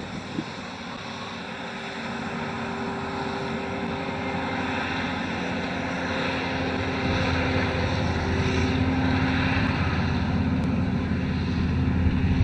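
Combine harvester's diesel engine running steadily under harvesting load, a droning hum with the rush of its fans and threshing gear. It grows louder as the machine comes closer, most of all from about halfway through.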